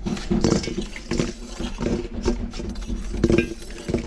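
An iron skewer prying baked kulchas off a tandoor's wall, with the breads dropping into a metal kadhai: a quick, irregular run of clinks, knocks and scrapes.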